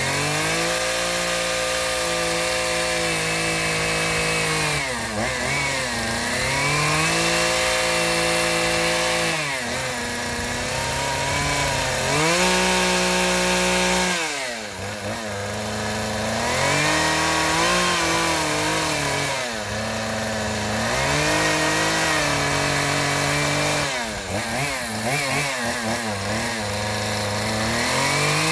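Chainsaw engine running, its speed dropping and rising again every few seconds with steady stretches between.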